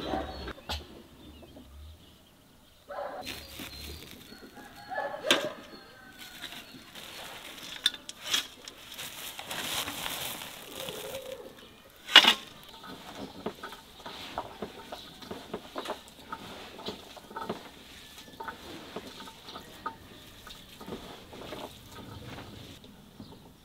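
A turkey tom displaying, with fowl sounds and wing rustle. Then a metal scoop scrapes soil into galvanized buckets, with a sharp metallic clink about twelve seconds in and a run of small scrapes and taps after it.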